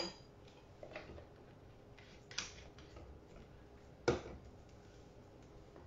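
A few scattered light clicks and knocks of a spatula and hands at a mixing bowl of quinoa batter. The loudest knock comes about four seconds in.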